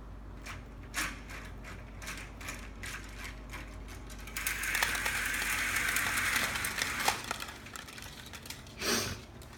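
Vertical blinds clacking and rattling as they are handled: light clicks of the vanes at first, then a longer rattle of about three seconds as the blinds are drawn along their track, and one louder knock near the end.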